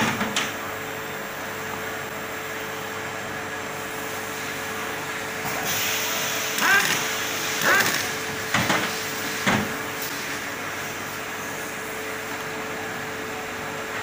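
Steady hum and hiss from a vacuum-chamber helium leak test machine, with a steady tone. About six seconds in, a higher hiss starts, and several short sweeping sounds follow over the next few seconds as one of the test chambers opens.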